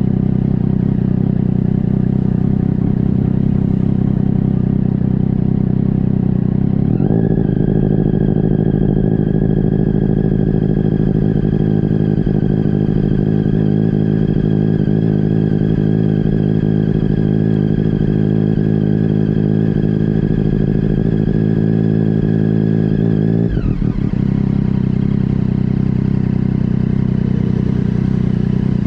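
Motorcycle engine heard from onboard at low speed: it picks up about a quarter of the way in and holds steady with a whine above it, then drops back to low revs as the bike slows to a stop near the end.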